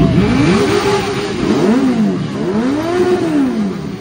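Motorcycle engines revving in repeated throttle blips, each rising in pitch and falling back, with two or more engines overlapping near the start.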